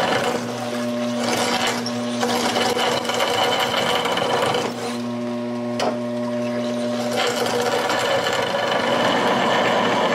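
Homemade milling machine drilling into a metal block with a twist drill. The spindle runs with a steady hum and whine under a rough, chattering cut that swells and eases as the drill is fed in. There is one sharp click about six seconds in.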